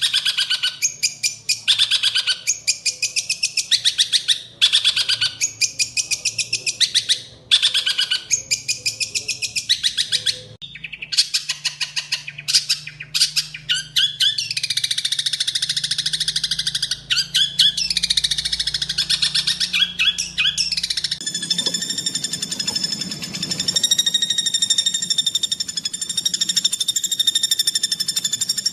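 Greater green leafbird (cucak hijau) singing harsh, fast-repeated high notes, the rapid 'tembakan' bursts, in phrases broken by short gaps. About 21 seconds in, the song gives way to a steady, even buzzing trill held at one pitch.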